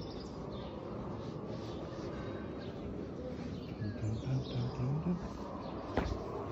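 Outdoor background noise with scattered faint bird chirps. A short low pitched sound rises in pitch about four to five seconds in, and a single sharp click comes near the end.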